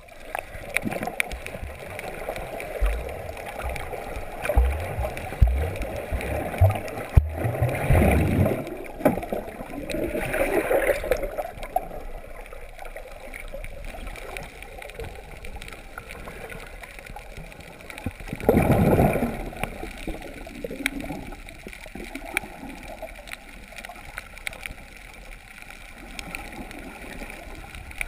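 Muffled water noise picked up by a submerged camera: gurgling and sloshing throughout, with low knocks in the first several seconds and louder bubbling rushes about eight, ten and nineteen seconds in.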